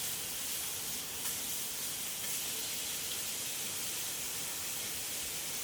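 Food frying on a hot pan or grill, a steady sizzling hiss.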